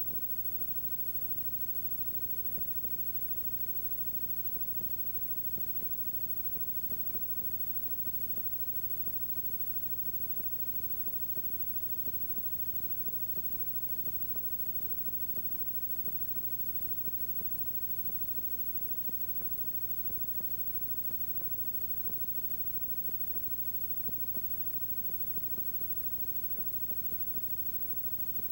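Steady hiss with a low electrical hum and its overtones, the background noise of an old VHS tape transfer with no programme sound, with faint ticks scattered through.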